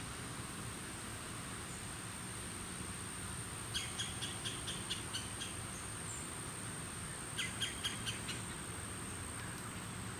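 Two short runs of rapid bird chirps, each about a second long, the first about four seconds in and the second about seven seconds in, over a steady high-pitched insect drone.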